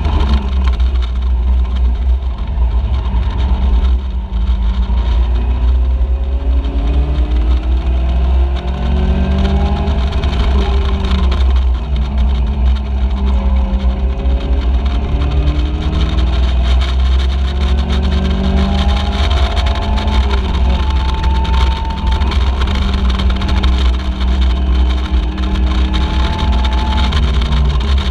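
Caterham Seven race car's engine under hard racing, heard from the open cockpit. The revs climb and drop again and again through gear changes and corners, over a constant heavy low rumble.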